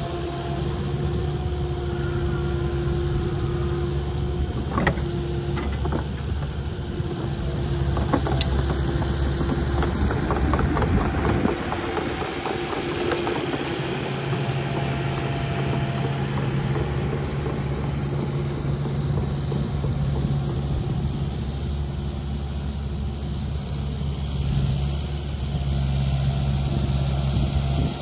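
Kubota KX080-4 excavator's diesel engine running steadily under hydraulic load as the machine swings and tracks while carrying a tree root ball in its grapple. A few sharp cracks come around five and eight seconds in, then a burst of crunching and crackling around ten to twelve seconds in.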